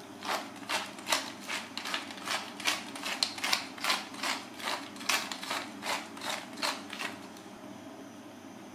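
Pepper mill being twisted by hand over meat, grinding in a quick run of about twenty short scraping strokes, about three a second, that stops about seven seconds in.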